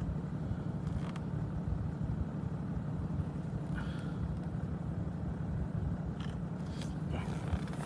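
Vehicle engine idling, a steady low hum, with a few faint clicks and rustles.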